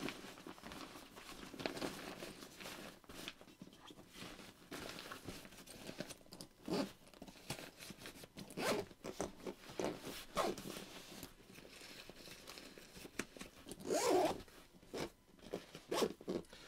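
Zipper on a fabric camera backpack being pulled in several short, uneven runs around the bag, mixed with rustling and handling of the bag's nylon shell as it is closed up.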